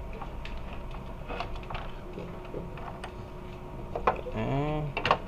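Plastic parts of an air conditioner's indoor unit clicking and knocking as they are handled and fitted by hand, a scatter of short clicks. Near the end comes a brief hummed voice sound.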